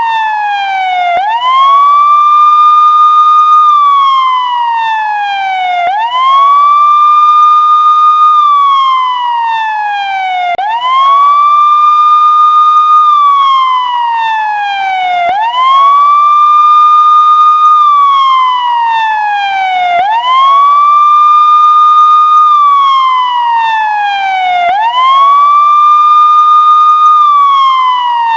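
Electronic police siren in a slow wail, one tone with overtones: each cycle sweeps quickly up, holds high for about a second and a half, then slides down over about two seconds before jumping up again, repeating about every five seconds.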